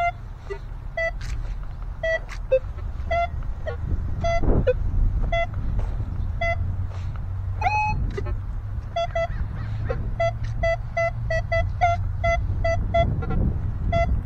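Minelab Equinox 900 metal detector with a 6-inch coil giving short beeps on one tone as the coil is swept over a target. The beeps are irregular at first and come a few a second in the second half, over a low background rumble.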